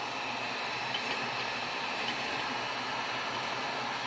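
Heat gun blowing steadily, heating the glue on a subwoofer so it can be pried up with a screwdriver; a faint tap about a second in.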